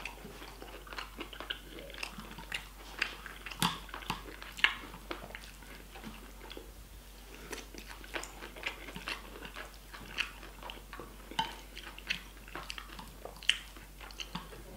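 Close-mouthed eating: chewing of rice and stir-fried chicken with bamboo shoots and mushrooms, with many sharp, irregular wet clicks and small taps, a couple of them louder.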